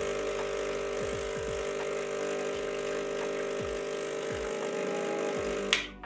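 Rancilio Silvia espresso machine's vibratory pump humming steadily while pulling an espresso shot, stopping with a click near the end as the shot is ended.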